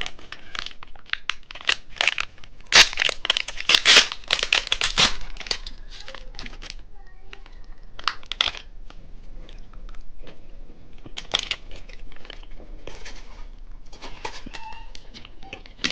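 Plastic candy wrapper crinkling and tearing as the packaging of a cheese-stick candy is handled and opened. The dense crackling is loudest a few seconds in, then goes on more softly.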